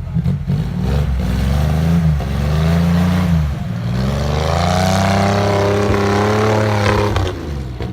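Off-road vehicle's engine revving. The pitch climbs and dips over the first few seconds, then is held high for about three seconds before dropping off near the end.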